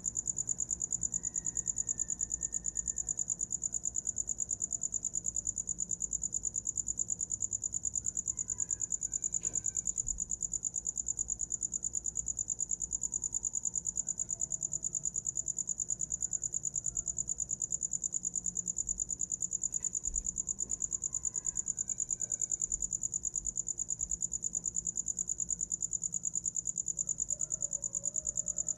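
A cricket singing: one steady, high-pitched, rapidly pulsing trill that keeps going without a break.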